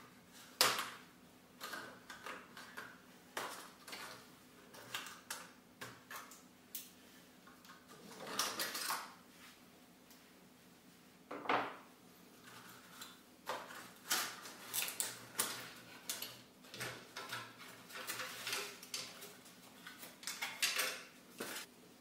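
Irregular sharp clicks, knocks and rustles of side cutters snipping plastic shipping zip ties on a 3D printer's frame and pulling them free, busiest in the second half.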